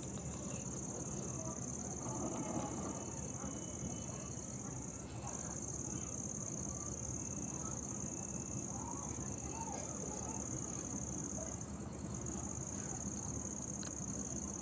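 A steady, high-pitched chorus of chirring insects, dipping briefly twice, over a low steady hum.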